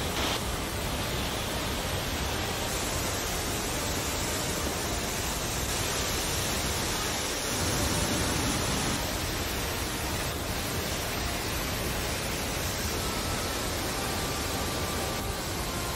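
Water rushing from the Three Gorges Dam's open spillway outlets and crashing into the flooded river below, a steady noise that swells a little about halfway through.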